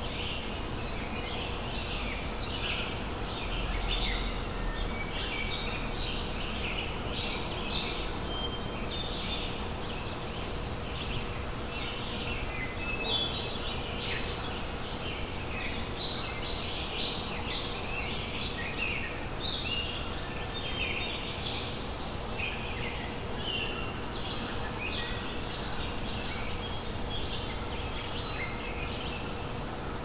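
Many songbirds calling and singing at once: a dense chorus of short, high chirps and trills, over a faint steady hum and a low background rumble.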